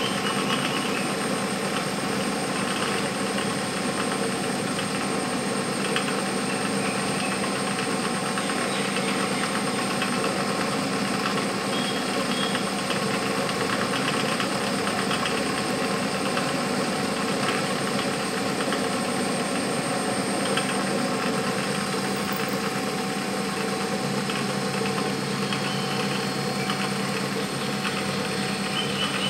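Vertical milling machine cutting a metal plate: the spindle motor runs with a steady hum and a high whine under the continuous grinding of the cutter taking metal off, throwing chips.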